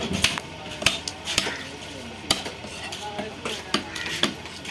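Knife work on a fish on a cutting board: irregular sharp taps and clicks of the blade striking the board, with scraping between them.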